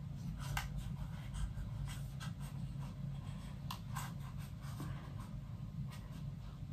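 Light scattered clicks and rubbing of a small white plastic folding phone stand being handled and unfolded by hand, over a low steady hum.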